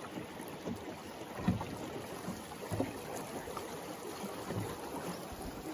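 River water running and lapping against a drift boat's hull, with a couple of soft knocks.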